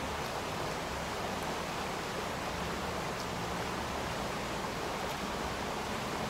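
Steady rushing of a fast-flowing river, with a couple of faint clicks.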